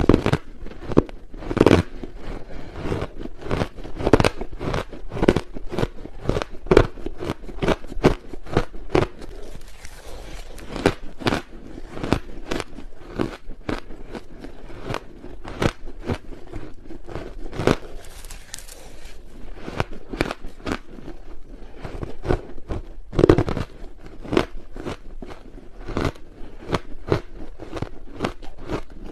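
Close-miked crunching of ice being bitten and chewed, a dense run of sharp crunches several a second, with a few louder bites.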